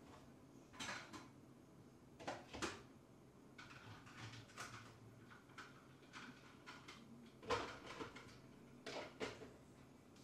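Faint knocks and clicks of household objects being handled and set down, some in quick pairs, the loudest about three quarters of the way through.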